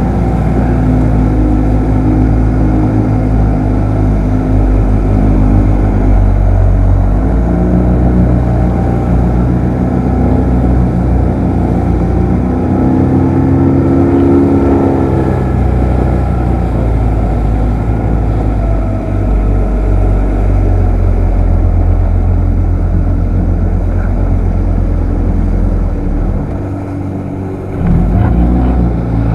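Small fishing boat's outboard motor running under way, its pitch shifting now and then. It eases off briefly near the end, then picks up again.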